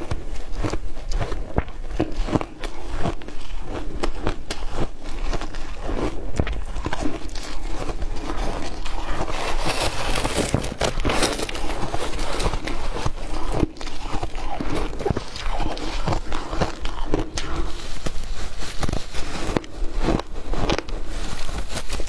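Ice being bitten and chewed: a dense, continuous run of crunching and cracking.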